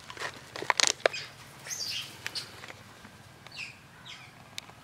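A burst of sharp crackles and clicks, then a few short high animal calls that fall in pitch, with a last click near the end.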